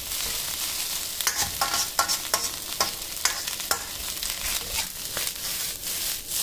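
Fried rice sizzling in an iron wok while a metal wok ladle stirs and scrapes it, with a quick run of sharp ladle strokes against the wok, about three a second, between about one and four seconds in.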